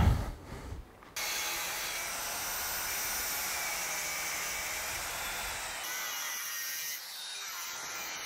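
Angle grinder with a cut-off disc cutting through steel angle bar, starting abruptly about a second in and running steadily, a little quieter near the end.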